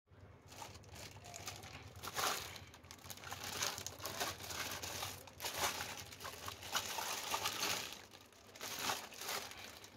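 Clear plastic bag crinkling in irregular bursts as it is handled and turned over.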